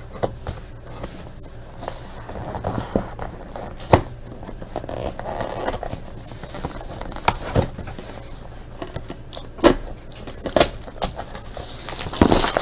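A sealed box of baseball cards being handled and opened: cardboard and plastic wrap scraping, tearing and crinkling, with scattered sharp clicks and taps.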